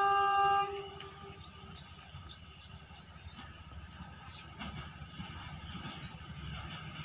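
Horn of an approaching ZDM4A narrow-gauge diesel locomotive, a steady chord that cuts off about half a second in. Then birds chirp, over a low rumble from the locomotive that grows toward the end.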